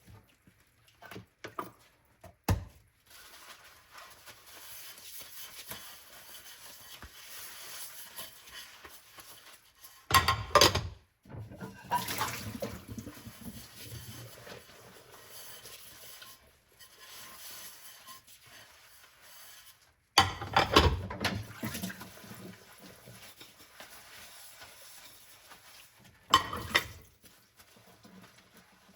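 Dishes being washed by hand in a sink: soft sloshing and scrubbing, broken several times by louder clatters of dishes being handled and set down.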